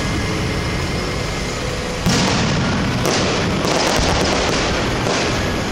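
Aerial fireworks shells bursting overhead: a sudden loud bang about two seconds in, then three more bursts, over a steady background noise.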